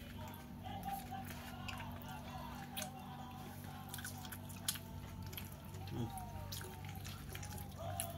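A person biting into and chewing a burger, with scattered sharp wet mouth clicks. Faint background music and a steady low hum run underneath.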